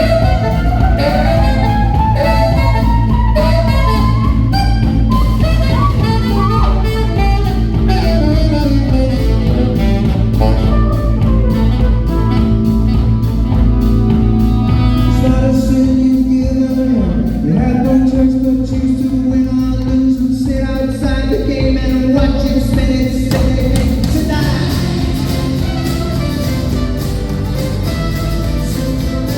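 Live band playing an instrumental passage: a melodic lead line, saxophone-like, winds up and down and holds one long note about halfway, over guitar, bass and drums.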